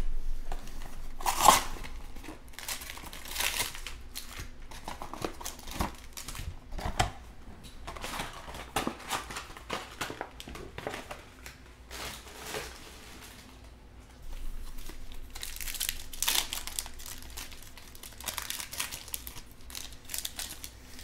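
Foil-wrapped trading-card packs crinkling as a cardboard hobby box is opened and its packs are taken out and handled, with irregular rustles and crackles. Near the end a foil pack is torn open.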